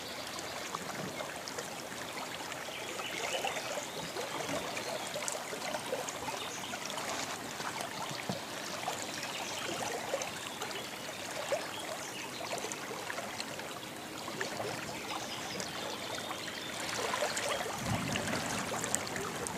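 River water lapping and trickling against the side of a small fishing boat drifting with the current, a steady splashy wash that grows a little louder near the end.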